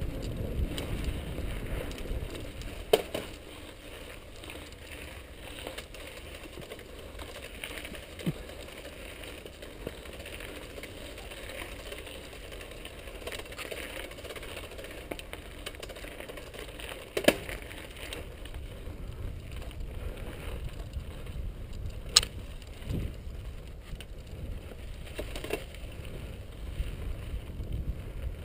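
Mountain bike riding down dry dirt singletrack: steady rumble and crunch of the tyres on the trail with wind on the microphone, and a few sharp clacks as the bike rattles over bumps, the loudest late on.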